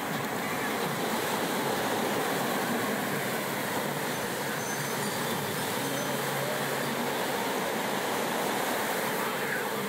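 Steady rushing wash of surf, with no breaks.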